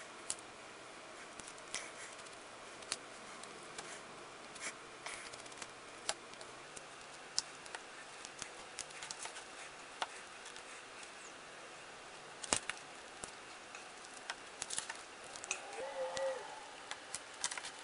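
Faint, scattered small clicks and ticks of a Torx screwdriver and a metal-and-plastic folding knife being handled while its handle screws are backed out, with one sharper click about two-thirds of the way through.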